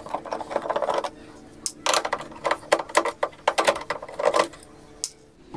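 Sharp plastic clicks, taps and knocks from hands and a screwdriver working on the casing of a Canon MG2440 Pixma inkjet printer during disassembly, with a short scraping rub near the start.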